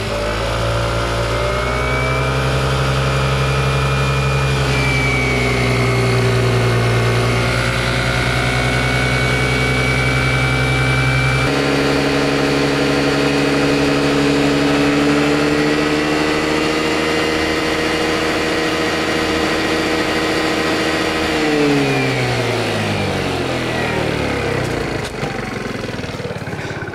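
A Suzuki Let's UZ50 scooter's small four-stroke engine running to warm up before an oil change. Its revs rise in the first few seconds and then hold fairly steady. There is an abrupt change in tone about halfway through, and near the end the pitch slides down as the revs drop.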